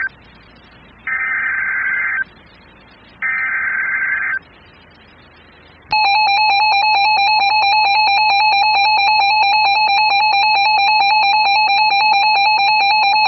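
Emergency Alert System SAME header: two one-second bursts of warbling digital data tones with short gaps between them. About six seconds in, the loud, steady EAS attention tone starts and holds, announcing an alert, here a tornado warning.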